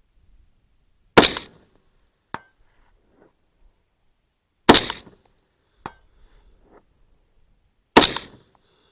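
Three rifle shots from a 24-inch-barrel AR-15 firing 75-grain rounds, spaced about three and a half seconds apart, each with a short echo tail. A faint metallic ping follows about a second after each of the first two shots.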